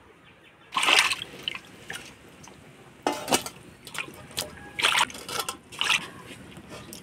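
Peeled prawns being washed by hand in water in a steel bowl: a run of uneven splashes and sloshes, starting about a second in.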